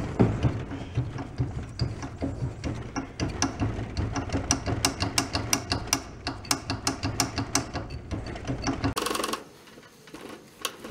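Rapid metallic clicking and clunking from a rusted, partly seized antique tiller engine being rocked and worked back and forth by hand, to see whether its stuck valves and rod will move. The clicks grow faster and more regular, about four a second, from about four seconds in, then stop near the end.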